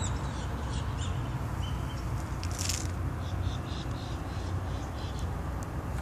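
Steady low background rumble with a few faint, short high chirps through the middle and a brief hiss about two and a half seconds in.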